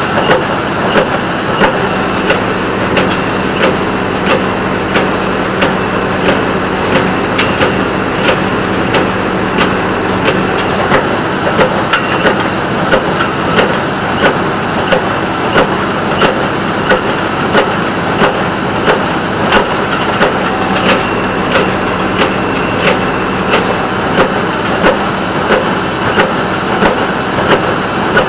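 Massey Ferguson 1837 small square baler working in the field behind a running three-cylinder John Deere 5055E tractor, its plunger knocking about one and a half times a second as it packs hay into the bale chamber.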